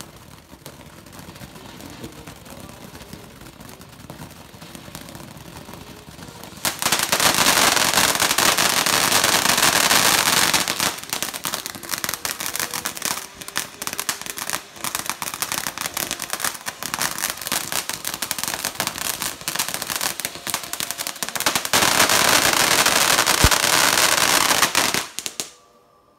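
Ground firework fountain spraying sparks. It fizzes more quietly at first, then from about seven seconds in gives loud, dense, rapid crackling for most of the time, and cuts off suddenly near the end.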